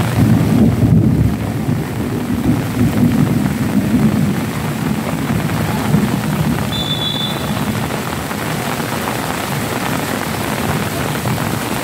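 Steady rain with a low rumble of thunder that is strongest in the first few seconds and then fades.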